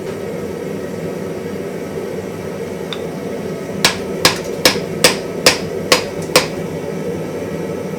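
Hammer striking white-hot iron on an anvil, forge-welding a faceplate onto the anvil body: seven quick, sharp blows about two a second, starting about halfway in. A steady rushing noise runs underneath.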